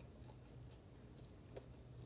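Faint chewing with a few soft, short mouth clicks, over a steady low drone from a neighbour's lawn mower.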